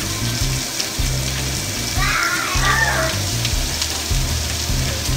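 Vegetables sizzling as they fry in a pan, with a kitchen tap running into the sink at the start.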